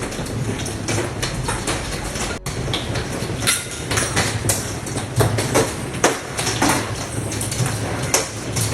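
Hailstones pelting a house: a dense, irregular clatter of hard impacts over a steady rush of falling ice.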